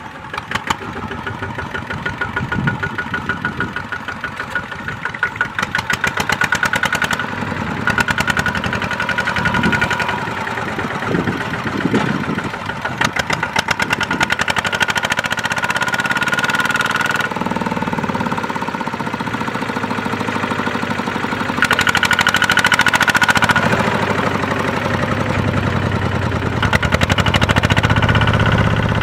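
Kubota ZT140 single-cylinder diesel engine of a two-wheel walking tractor running under load, its rhythmic knock rising and falling as the throttle is worked, with louder spells a little past the middle and near the end. The tractor is straining to pull a rice-laden trailer out of sticky mud.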